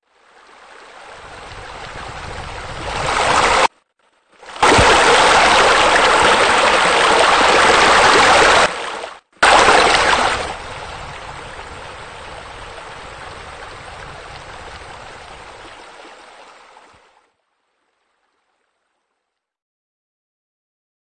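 Rushing water of a waterfall spilling into a pool, a steady hiss that swells up over the first few seconds. It breaks off abruptly twice, is loudest in the middle, then runs quieter and cuts out.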